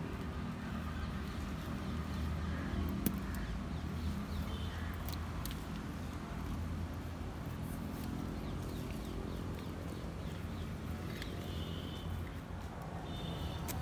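Hands scraping and pressing loose potting soil around a bonsai trunk in a clay pot, with a few light clicks, over a steady low background hum.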